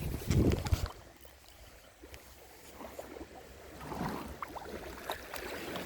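Wind buffeting the microphone for about the first second, then a quieter outdoor stretch with a few faint clicks.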